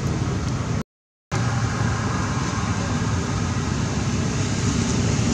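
Steady rumbling, hissing background noise that cuts out completely for about half a second around a second in, then carries on unchanged.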